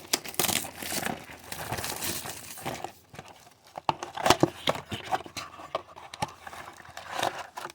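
Plastic shrink-wrap on a blaster box of trading cards being picked at and torn open, crinkling steadily for the first few seconds, then scattered taps and clicks as the cardboard box is handled.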